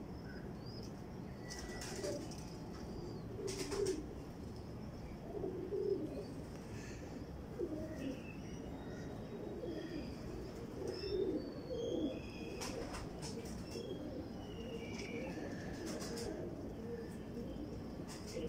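Domestic tippler pigeons cooing repeatedly: low, warbling coos, one after another, with short gaps between them.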